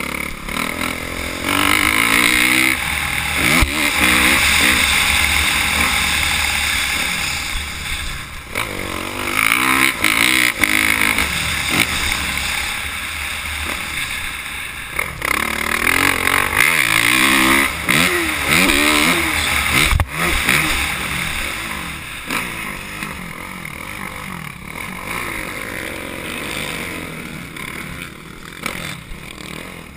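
Motocross bike engine heard from the bike-mounted camera, revving up and down again and again as the rider accelerates and shifts around the dirt track. It is loudest through the first two-thirds and eases off over the last several seconds, with a sharp knock about twenty seconds in.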